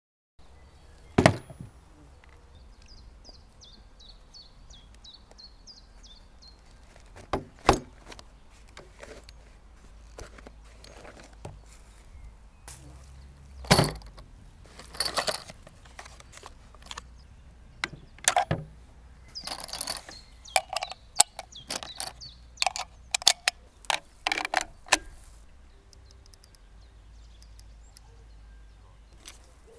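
Sharp knocks and clicks of a Zastava M76 rifle, its scope and an ammunition box being set down and handled on a slatted wooden table, a few single loud knocks first, then a quick cluster of small clicks. A bird chirps briefly a few seconds in.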